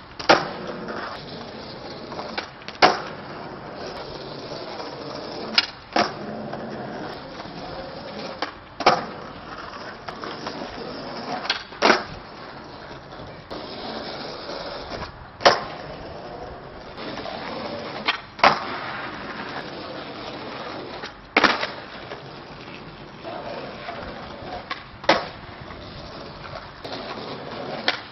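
Skateboard on asphalt: wheels rolling, with a sharp wooden clack of the tail popping or the board slapping down roughly every three seconds as flip tricks are tried over and over.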